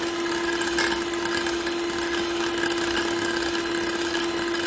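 Electric hand mixer running steadily on its high setting, a constant motor whine as its wire beaters whip egg whites and sugar in a ceramic bowl.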